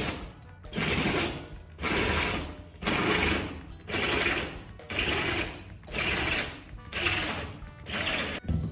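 Electric drill with a 1/4-inch steel bit drilling out a hinge rivet, run in short pulses about once a second.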